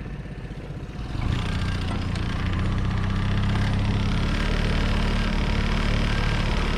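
Small boat's motor running, opening up about a second in and then holding a steady drone.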